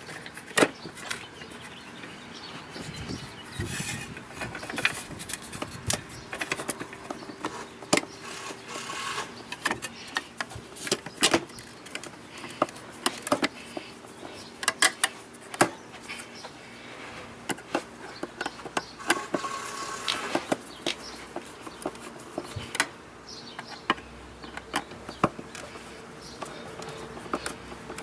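Irregular clicks and knocks of hand work with tools and hardware on an outdoor electrical receptacle, as it is fitted back into its box.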